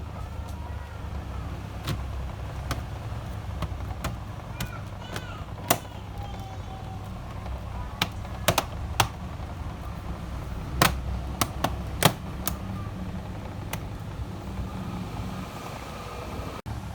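Sharp plastic clicks and snaps, scattered and some in quick pairs, as a laptop's bottom cover is pressed back onto the chassis and its clips catch, over a steady low hum.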